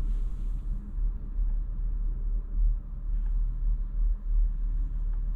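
Steady low rumble of road and tyre noise inside the cabin of a Kia EV6 GT-Line electric car as it drives.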